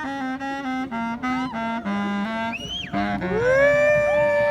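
Street band of horns and reeds playing: a melody of short stepped notes, then a quick upward glide to a high squeal just before three seconds in, and a long held note after it.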